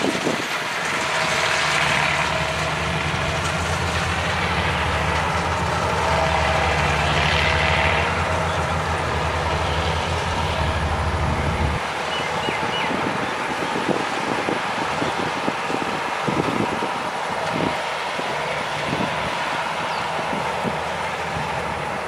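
Rice combine harvester running in the field: a steady low engine hum under the rushing noise of the machine at work. The hum cuts off abruptly about halfway through, leaving the broad rushing noise with scattered knocks.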